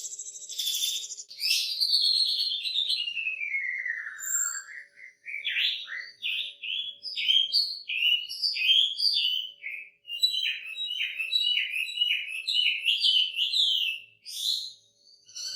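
Chinese hwamei (wambi) singing loudly. A long whistled note falls steadily in pitch early on, then the bird goes into fast runs of short, sliding, varied notes.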